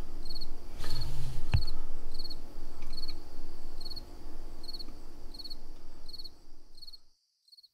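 A cricket chirping steadily in an even rhythm, a little more than one and a half chirps a second. A single knock comes about a second and a half in, and the chirping fades out near the end.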